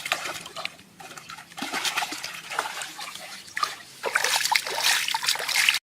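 Water splashing and sloshing in an irregular, busy patter, cutting off abruptly near the end.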